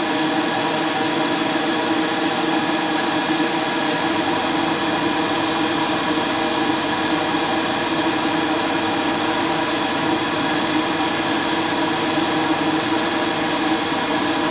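Spray booth extractor fan running with a steady hum, while a gravity-feed airbrush sprays paint in short hissing bursts that stop and start many times.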